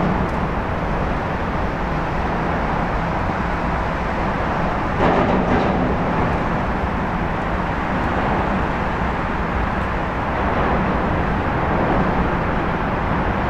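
Steady low rumbling outdoor background noise, with a brief louder rush about five seconds in.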